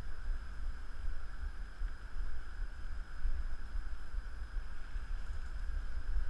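Low, uneven rumble of wind on the microphone over a faint steady hiss, with no shots or distinct events.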